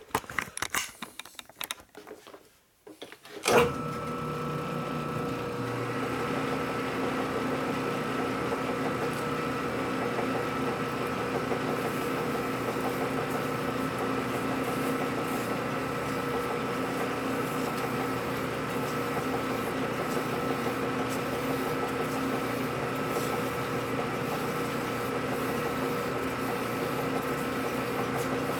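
A few handling clicks, then a metal lathe starts about three and a half seconds in and runs steadily with a constant hum and whine. Abrasive cloth is held against the spinning metal workpiece, adding a steady rubbing sound as the part is smoothed.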